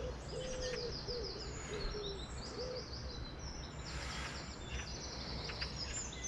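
Outdoor birdsong: several songbirds singing quick high trills over and over, with a low repeated cooing in the first few seconds, over a steady background hiss.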